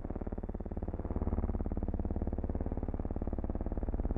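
Low, steady drone of piston engines with a rapid, even pulse. It grows a little louder about a second in.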